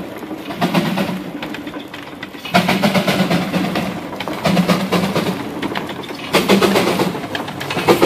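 Russell 16-48 steam traction engine running along under steam, with a fast, regular beat from its exhaust and running gear. It gets louder about two and a half seconds in as it draws close.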